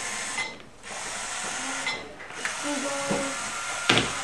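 Bee-Bot toy floor robot's small electric motors whirring as it drives one step after another, stopping briefly twice between steps. A sharp click near the end.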